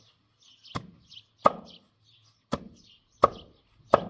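Five sharp chopping blows on wood at an uneven pace, each with a short ringing tail.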